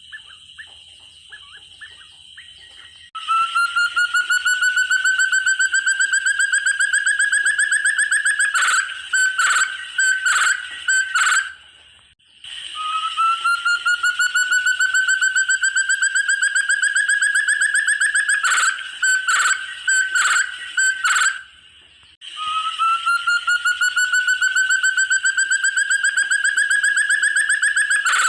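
Forest partridge (puyuh hutan, 'burung terung') call: a fast run of notes rising slightly in pitch for about five seconds, breaking into a stuttering series of notes, then stopping. The phrase comes three times, the first starting about three seconds in.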